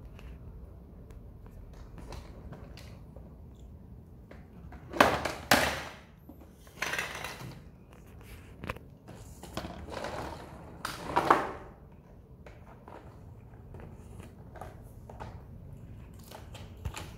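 Plastic toy truck rolling and knocking on a tile floor in a few loud bursts, two sharp ones about five seconds in and longer ones around the middle, with small clicks and handling noises between.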